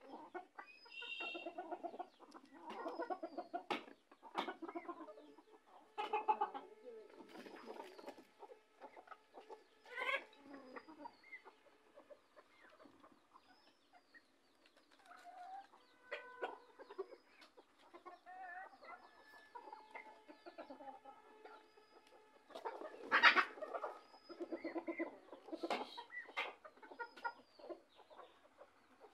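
A flock of domestic (deshi) chickens clucking, with repeated short calls from several birds and a louder outburst of calling about two-thirds of the way through.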